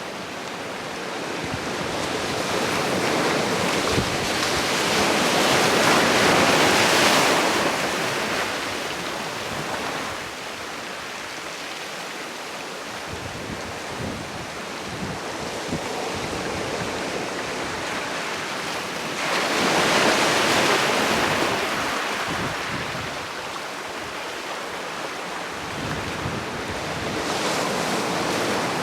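Ocean waves breaking and washing on the shore in slow surges. The surf swells loudest about a quarter of the way in and again about two-thirds through, with a smaller surge near the end.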